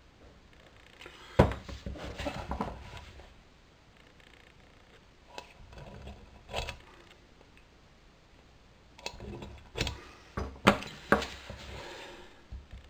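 Galvanised steel plant pot, sprayed white as a lamp shade, being handled and marked on a wooden workbench: scattered sharp knocks and clanks, one loud one about a second and a half in, a few more mid-way and a cluster near the end.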